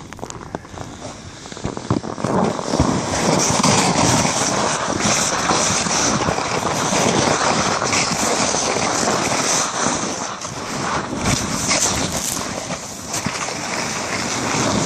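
Red plastic sled sliding fast down a packed snow luge run: a steady scraping hiss that builds after about two seconds and eases off near the end, with wind rushing over the microphone.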